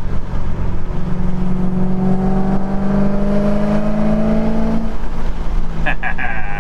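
BMW E92 M3's 4.0-litre V8 with American Racing headers and a catless exhaust, heard from inside the cabin while driving. The engine note swells about a second in, climbs steadily in pitch for about four seconds, then falls back.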